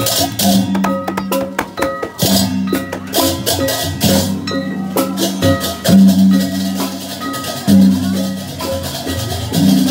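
Balinese processional gamelan (beleganjur) playing: barrel drums and clashing hand cymbals over steady metal-keyed and gong tones, with a strong low gong stroke about every two seconds.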